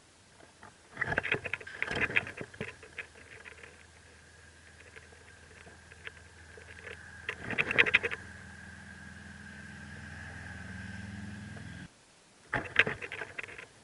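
Bursts of scratching and rustling in the nest close to the microphone, three times, as the mockingbird nestlings stir. Under them a steady mechanical hum with a thin high tone runs and then cuts off suddenly near the end.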